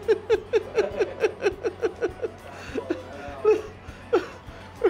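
A person laughing hard: a quick run of 'ha-ha' bursts, about five a second, that slows about halfway through into a few separate laughs.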